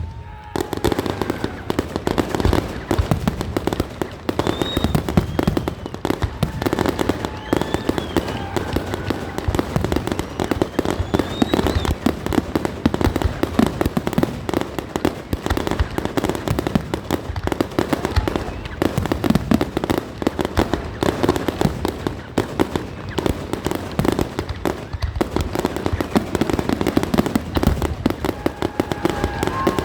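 Fireworks display: a dense, continuous barrage of crackling, popping and banging shell bursts with no pause.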